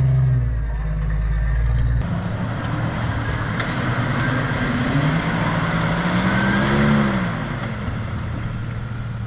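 Off-road truck engine revving through a mud bog: the engine note climbs and then falls away about seven seconds in, over a steady rushing noise of churned mud and water.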